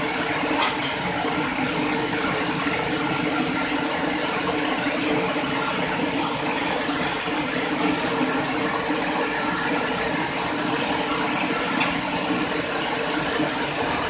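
Commercial dishwasher running: a steady rush of spraying water over a pump hum. Stainless-steel bowls clink twice on the rack, about half a second in and near the end.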